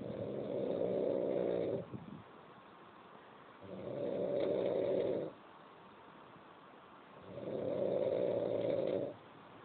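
Snoring: three long snores, each lasting about a second and a half to two seconds, coming about every three and a half seconds, with quiet between them.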